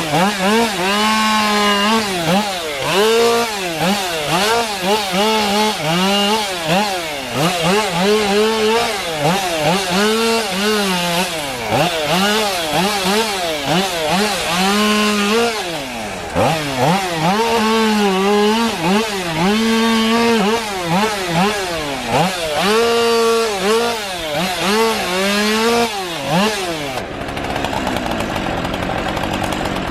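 Chainsaw cutting wood. The engine revs up and down over and over as it works in and out of the cut, holding a steadier, lower pitch while it is loaded. Near the end it drops to a lower, even run.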